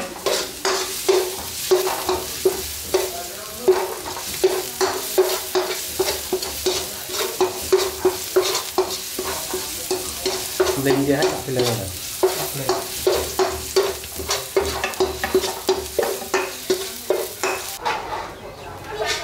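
Metal spatula scraping and tapping a stainless steel wok in quick, uneven strokes while chopped garlic sizzles in hot oil; each stroke sets the wok ringing on one steady note. The stirring and sizzling stop abruptly near the end.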